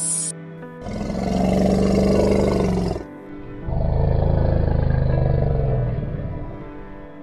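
Elephant giving two long, low-pitched roaring calls, one after the other with a short pause between, over soft background music.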